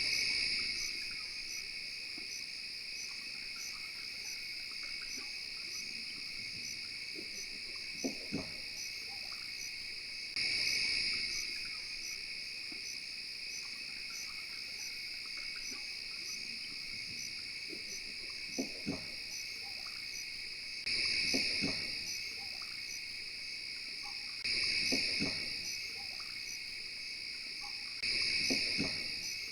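Night insect chorus of crickets and katydids, a steady high trilling with a fast pulse that swells louder every few seconds. A few short low calls sound over it, about four times.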